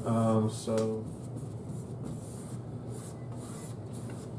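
Paintbrush rubbing acrylic paint across a stretched canvas in soft scrubbing strokes.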